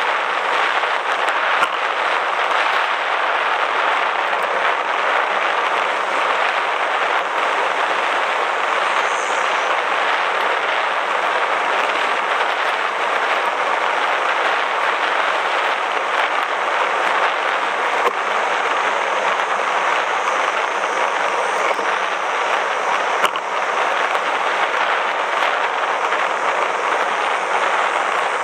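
Steady rushing of wind and tyre noise picked up by a camera riding on a moving bicycle, with a few faint clicks.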